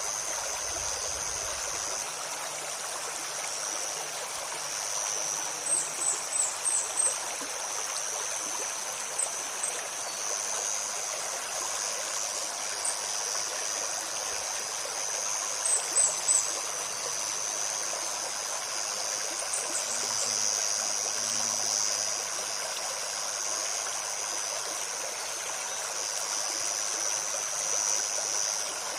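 A shallow forest stream babbling steadily, with a continuous high insect drone over it. A small songbird gives runs of a few short, very high chirps several times.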